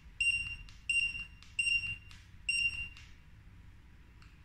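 Handheld 1D mini barcode scanner beeping on each successful read as its red scan line crosses a barcode: four short, high-pitched beeps in about three seconds, then a pause.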